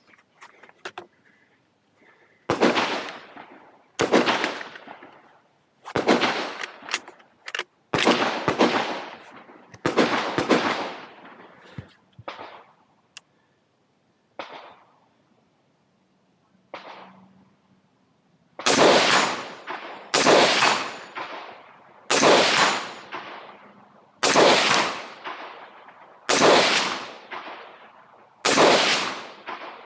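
Rifle shots fired in a steady string, roughly one every one to two seconds, each with a ringing tail. Around the middle there is a lull of a few seconds broken only by a couple of fainter shots, then the loud shots resume at an even pace of about one every two seconds.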